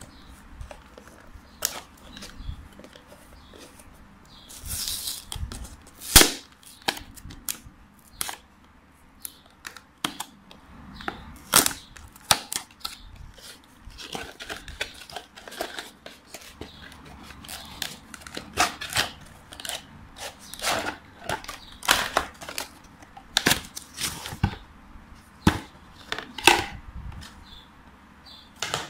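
A cardboard product box being opened and its packaging handled: a run of sharp clicks and taps from the card and inner tray, with a short rustle about five seconds in.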